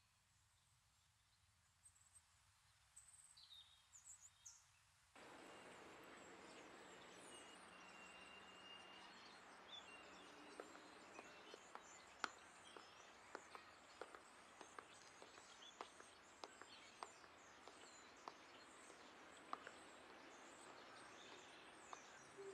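Quiet outdoor ambience with faint, thin bird chirps. About five seconds in, a steady street hiss cuts in suddenly. From about ten seconds, a woman's footsteps tap on the pavement roughly twice a second.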